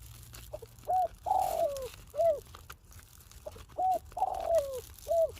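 Spotted dove (tekukur) cooing: two phrases of a few short rounded coos around a longer, falling coo, the second phrase starting about halfway through.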